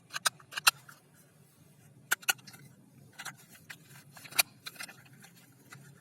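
Toy pistol clicking: a few sharp plastic clicks in the first second, then single clicks about two, three and four seconds in.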